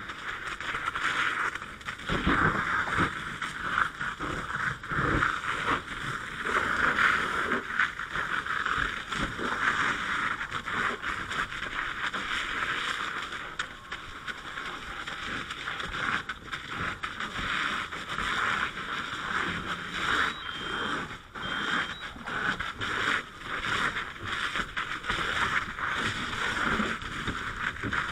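Fire hose nozzle spraying water in a steady hiss, over irregular knocks and scrapes as burned camper debris is pulled apart. Two short high beeps come about two-thirds of the way in.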